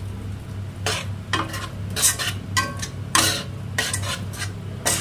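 Metal spatula stirring and scraping a thick masala-and-curd mixture around a kadhai, a stroke every half second or so, over a low sizzle from the pan.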